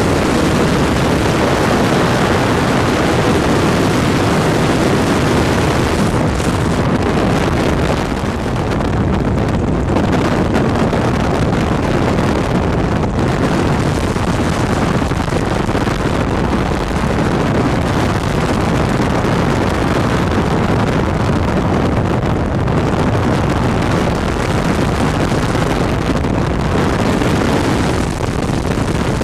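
Ultralight aircraft in flight, heard from on board: its engine runs steadily under a heavy rush of wind on the microphone.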